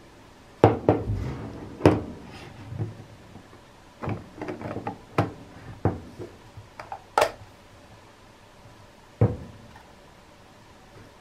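Rigid UV-cured resin segments of a 3D-printed transformable torus clacking and snapping against each other as the helical tube is twisted and closed into a ring by hand. Irregular sharp clicks come in clusters over the first seven seconds or so, then one more after a pause.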